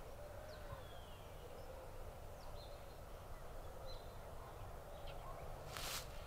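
Faint outdoor ambience of scattered short bird chirps over a low steady rumble, with a brief rush of noise near the end.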